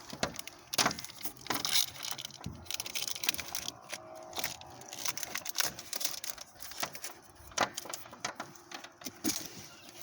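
Scattered sharp clicks and knocks with light rattling, from a solar panel's hooks, frame and cables being handled as the panel is unhooked and its connectors readied.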